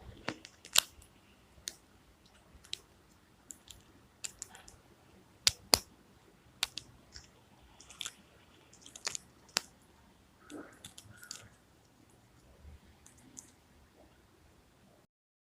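Handling of the small plastic pieces of a Kinder Joy egg: irregular sharp clicks and taps, with brief rustling in the middle.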